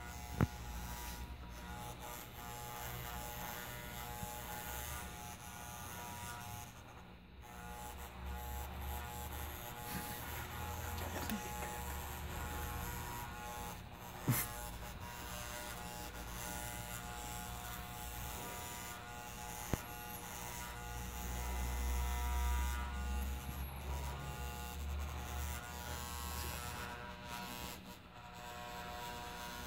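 Corded electric hair clippers buzzing steadily as they cut hair close to the head. Three brief sharp clicks sound during the cutting.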